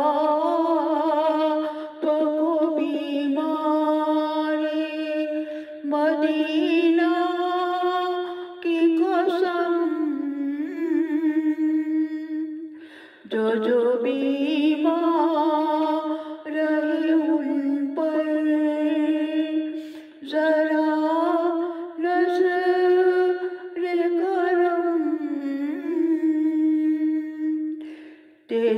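A woman's unaccompanied voice chanting a munajaat, a devotional supplication, in long drawn-out melodic phrases with short breaths between them and a longer break about 13 seconds in.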